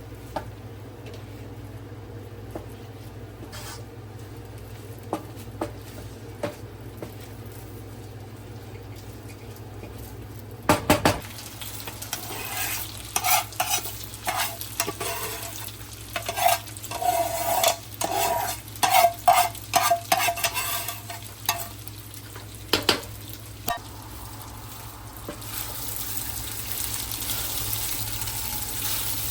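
A utensil stirring food in a cooking pot, repeatedly scraping and knocking against the pot. There is one loud knock about eleven seconds in, and a run of ringing scrapes follows. Near the end a steady hiss begins.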